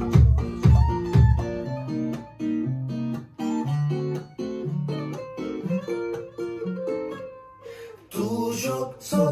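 Hungarian pop song in an instrumental break. About two seconds in, the beat and bass drop out, leaving a melody of single plucked notes. This thins to a short lull before the full beat comes back near the end.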